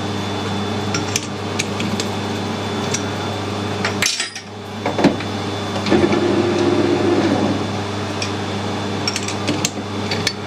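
Metal lathe running steadily while a chuck key clicks and clinks on the jaws of a four-jaw chuck as a steel bar is clamped. About halfway through, the chuck is spun up briefly to check whether the bar runs true, then stopped, and the key clinks again.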